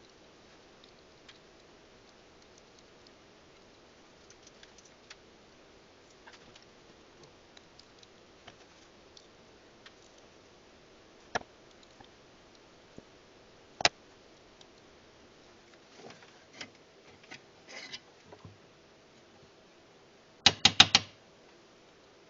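Scattered light clicks and taps of small objects being handled, with two sharper single clicks around the middle and a quick run of four or five loud clicks near the end.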